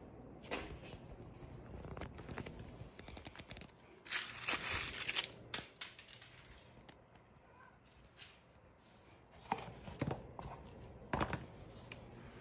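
Cats playing with a cardboard box and a small ball on a hardwood floor: scattered light knocks and clicks, with a scratchy rustling burst about four seconds in, the loudest sound here.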